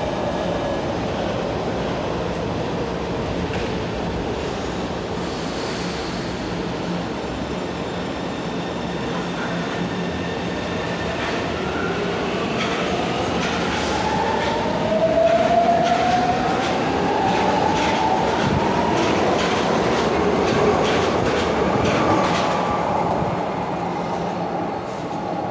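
São Paulo metro train at a station platform: a steady hum while it stands, then it pulls away, its traction motors giving a rising whine that climbs for about ten seconds, with rapid wheel clicks as it gathers speed.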